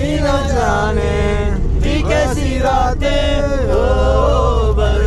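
Several young people singing together in long held notes, over the steady low rumble of a bus.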